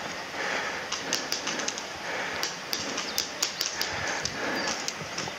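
Scattered sharp clicks and snaps of airsoft gunfire and BBs striking around the field, coming irregularly, over a steady outdoor hiss.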